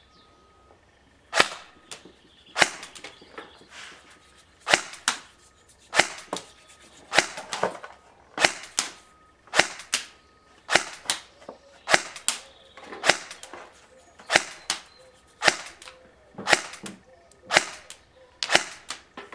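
BO Dynamics LT595 Shield airsoft electric rifle (AEG) firing single shots of 0.25 g biodegradable BBs, about one a second, some sixteen in all. Each shot is a sharp click, often followed a fraction of a second later by a fainter second click.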